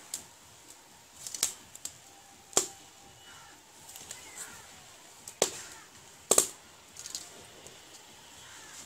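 Wood fire crackling inside a clay stove: irregular sharp cracks and pops, about seven in several seconds, some in quick clusters.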